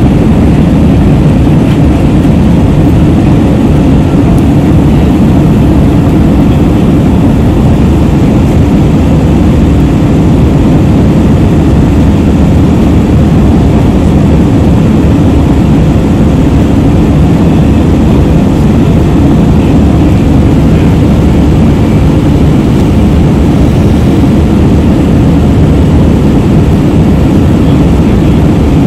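Jet airliner cabin noise in flight: a loud, steady low roar of the engines and rushing air, heard from a seat beside the wing.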